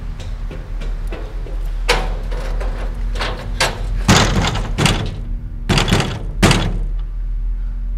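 A fist banging on a metal door: about six heavy, uneven blows, some with a short rattling ring after them, over a steady low hum.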